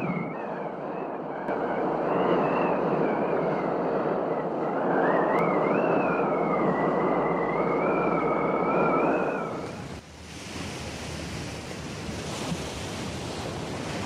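Rushing noise of ocean surf, with a long, slowly wavering high tone drifting over it. About ten seconds in, the full rush and the tone fall away to a thinner, hissier wash.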